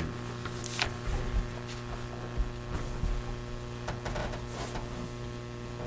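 Steady electrical mains hum with a few faint, scattered rustles and knocks.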